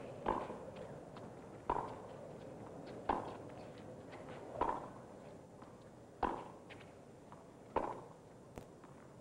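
Tennis ball struck back and forth with rackets in a baseline rally: six sharp pops at an even pace, about one every second and a half.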